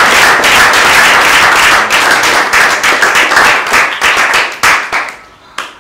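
A small group of people clapping their hands together, a dense run of claps that thins out about four seconds in to a few separate claps and then dies away shortly before the end.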